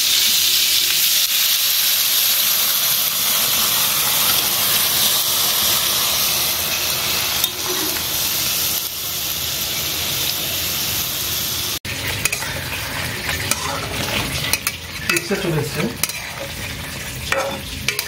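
Potol (pointed gourd) pieces sizzling in mustard oil in a frying pan, a steady hiss. About twelve seconds in, after a brief dropout, a spatula stirs and scrapes in the pan with irregular clicks over the lower sizzle.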